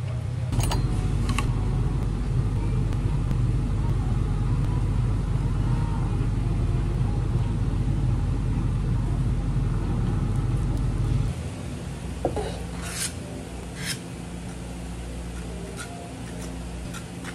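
Steady low machine hum that stops suddenly about eleven seconds in, then a few light clicks and knocks of utensils.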